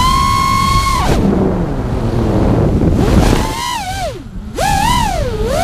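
FPV quadcopter's brushless motors whining high and steady, then falling away for about two seconds under a rush of wind as the throttle drops. The whine then swoops down and back up twice as the throttle is punched, with wind buffeting the onboard camera microphone throughout.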